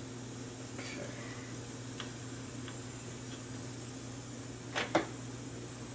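Faint clicks and taps from hands handling wires and small plastic connectors on a hexacopter frame, with a sharper double knock just before the end, over a steady low hum.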